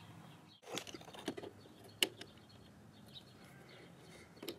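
Faint clicks and small knocks of a hose-clamp wrench being fitted onto a spring hose clamp on a radiator hose, with one sharper click about two seconds in.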